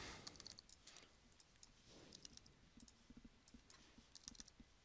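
Faint, scattered clicks of a computer keyboard and mouse over near silence, as short text entries are typed and added with mouse clicks.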